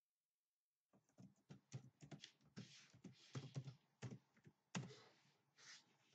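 Faint typing on a computer keyboard: quick, irregular key clicks that start about a second in.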